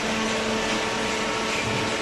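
Hydraulic cardboard baler's power unit running: an electric motor and hydraulic pump giving a steady hum over an even mechanical hiss.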